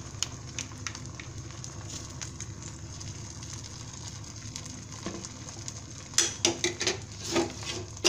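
Beaten egg with onion, green chilli and tomato frying in a little oil in a nonstick pan: a soft sizzle with scattered small pops over a low steady hum. Several louder clicks and knocks come in the last two seconds.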